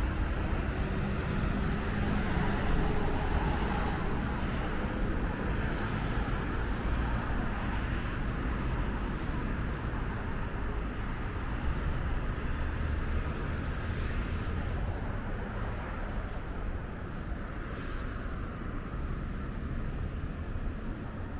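Street traffic: cars driving past with steady road noise.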